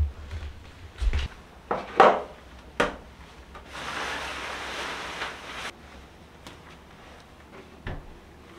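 Household handling sounds: a run of short wooden knocks and clunks, then about two seconds of steady hiss, then two more knocks near the end.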